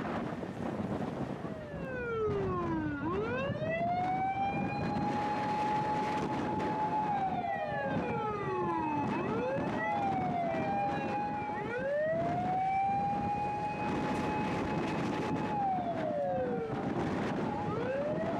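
Sirens of several Japanese fire engines overlapping one another as the convoy moves off. Each is a slow wail that rises, holds a long high note for a few seconds, then falls, over the low noise of the running engines.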